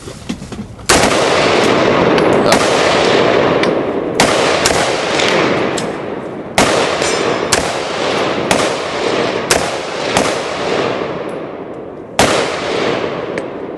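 A string of gunshots on an outdoor range, about one a second, each followed by a long echoing tail that overlaps the next; the first shot, about a second in, and one near the end are the loudest.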